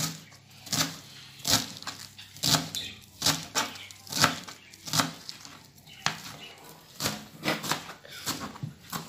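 Kitchen knife slicing through a bunch of fresh spinach leaves onto a plastic cutting board, a crisp chop with each stroke at an unhurried pace of about one or two strokes a second.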